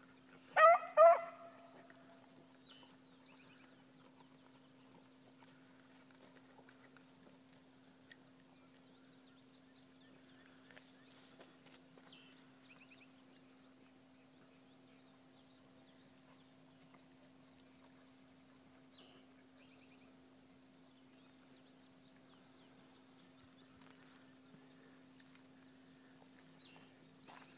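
A rabbit-hunting dog gives two short bays about a second in. After that there is only a faint steady hum and a few faint chirps.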